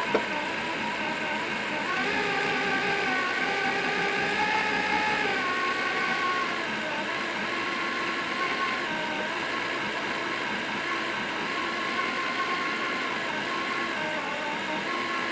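Electric drill turning a Wondermill Junior grain mill through a drill-bit adapter, grinding peanuts between stone burrs: a steady motor whine that rises in pitch about two seconds in and drops back around six seconds in as the drill speed changes.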